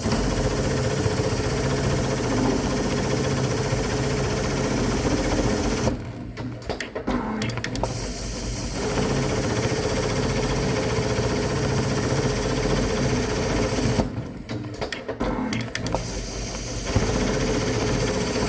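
Dürkopp Adler 911-210-6055 CNC pattern sewing machine with its 867 lockstitch head running and stitching at a steady speed. The stitching breaks off briefly twice, about six and fourteen seconds in, then resumes.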